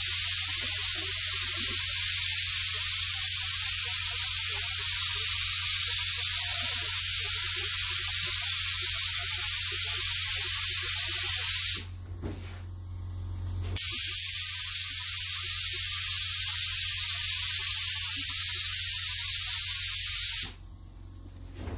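Paint being sprayed on in a long, steady hiss that pauses briefly about halfway through, then runs again and cuts off near the end.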